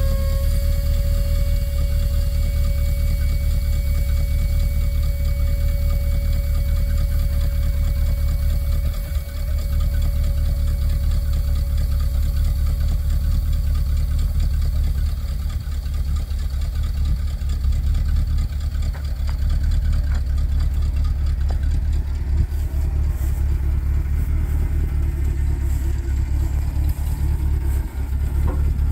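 1982 GMC C6500 grain truck's engine idling steadily, a low, even running sound.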